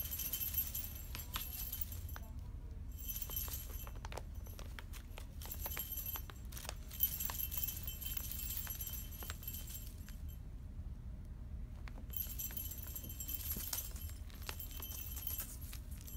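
Small bell on a cat toy jingling in several bursts, each a few seconds long, with scattered light clicks and taps in between.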